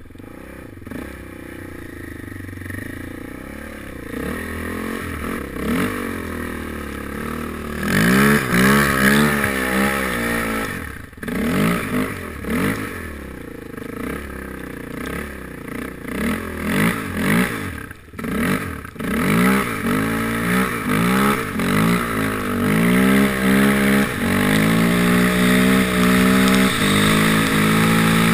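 Suzuki LT-Z400 quad's single-cylinder four-stroke engine, running low and quiet at first, then from about eight seconds in revving up and dropping back again and again, and holding steady high revs near the end.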